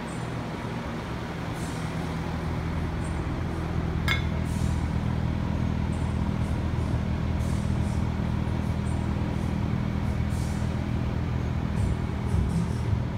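A steady low machine hum that gets a little louder about two seconds in, with a single sharp click about four seconds in.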